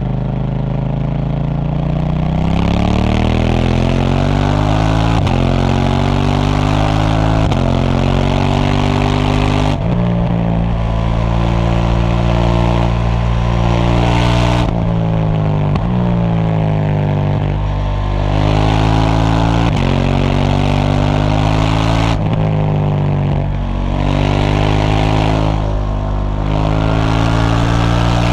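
KTM 790 Duke's parallel-twin engine through its stock exhaust, pulling hard up through the gears: the pitch climbs and drops back at each upshift. Around the middle it winds down as the bike slows, then pulls up through the gears again.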